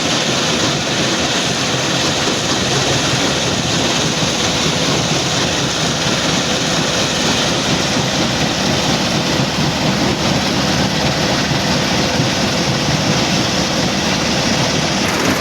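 Stone crusher plant machinery running: a loud, steady mechanical din with a faint steady hum in it.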